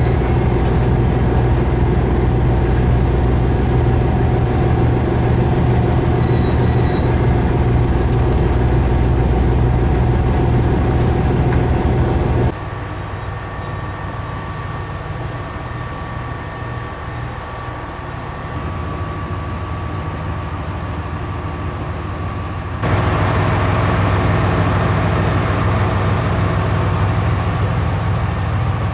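Diesel railcar running on the San'in Main Line, a steady engine drone with rail rumble. About twelve seconds in the sound cuts abruptly to a quieter drone, and about ten seconds later it cuts back to a louder one.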